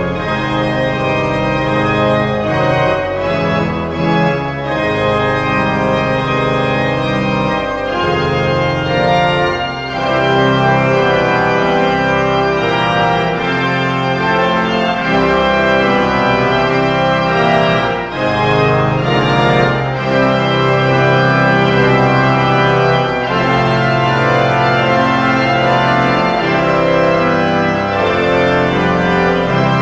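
Pipe organ playing loud, slow, sustained chords over long held low pedal notes, the harmony shifting every few seconds.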